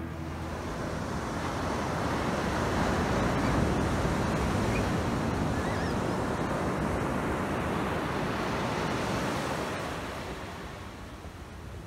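Ocean surf breaking and washing ashore: a steady rush that builds a couple of seconds in and fades near the end.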